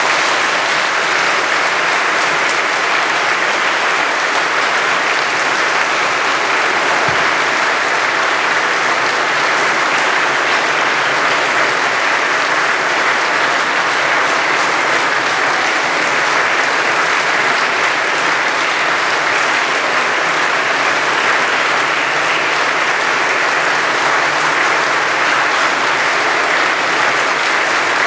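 Concert audience applauding after the final chord of a symphony: dense, steady clapping that keeps up without a break.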